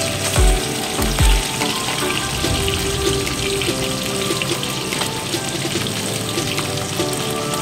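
Small tangra catfish frying in hot oil in an iron kadai: a steady sizzle with crackling spits. Two dull thumps come in the first second and a half.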